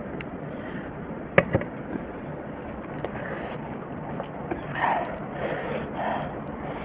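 Rice and dal being mixed by hand on a steel plate: soft wet squishing in patches through the second half. A sharp metal clack about a second and a half in, as the small steel bowl is set down.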